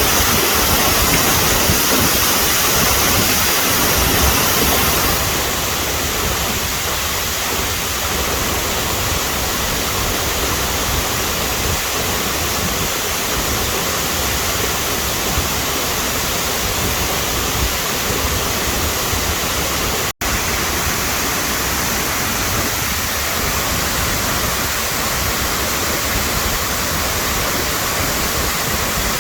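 Waterfall: a steady, loud rush of falling water. It drops slightly in level about five seconds in and cuts out for an instant about twenty seconds in.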